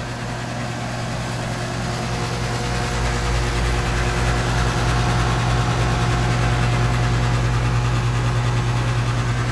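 2012 Bryant Legacy Line central air conditioner's outdoor unit running: a steady low hum with a few steady higher tones over the rush of the fan. It swells over the first few seconds and then holds steady. This is an odd sound that the owner has never heard the unit make and that sounds pretty off to him, on top of its usual buzzing.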